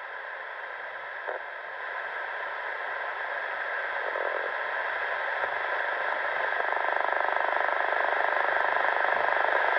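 Railroad scanner radio hiss: steady static from an open channel between transmissions, slowly growing louder.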